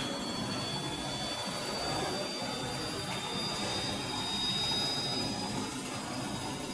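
Electrolux W555H professional washing machine running in a cycle, most likely spinning: a steady rushing drum noise with a high motor whine that slowly rises in pitch.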